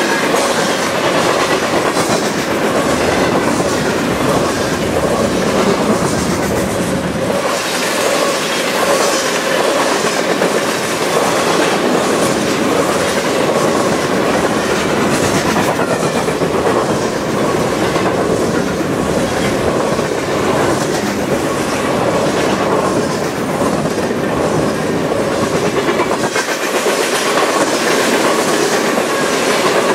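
Freight train of covered grain hopper cars rolling past at speed: a steady rumble of steel wheels on rail, with the clickety-clack of the passing wheels.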